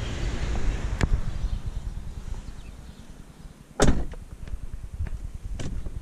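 Jeep Compass driver's door shutting with one heavy thud about four seconds in. Lighter clicks and knocks come before and after it as someone settles into the driver's seat.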